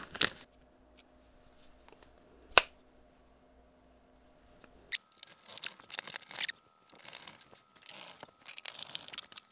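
Small hand-work noises of swapping the hinges on a plastic filament box: a single sharp click about two and a half seconds in, then a run of irregular clicks, taps and scrapes from screws and plastic parts being handled.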